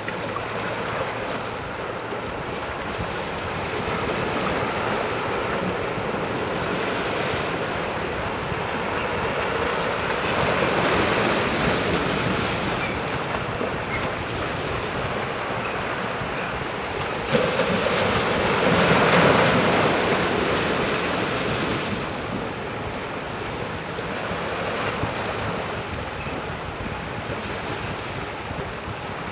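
Harbour ambience: wind rushing over the microphone above a wash of water noise. About seventeen seconds in, the rushing suddenly gets louder and then eases off over a few seconds.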